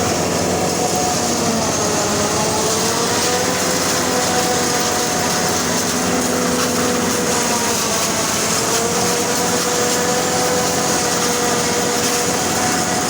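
Corn combine harvester running steadily: a constant machine drone with a whine that drifts slightly up and down in pitch.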